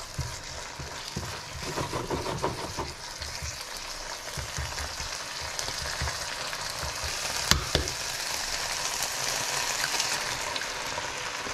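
Ground beef in sauce sizzling in a hot nonstick frying pan while a spatula stirs and scrapes through it in short strokes, with one sharp knock about two-thirds of the way through.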